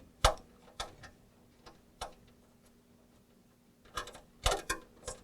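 Scattered sharp clicks and knocks of computer hardware and tools being handled while a PC is taken apart. A strong knock comes just after the start, a few lighter ticks follow, and a quick run of clicks comes near the end.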